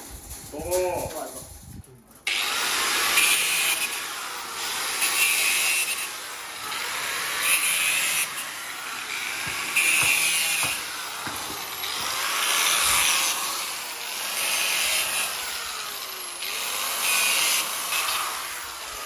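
Angle grinder cutting steel reinforcing mesh, starting about two seconds in. It makes a string of cuts, swelling louder roughly every two to two and a half seconds, and its pitch dips and recovers under each cut.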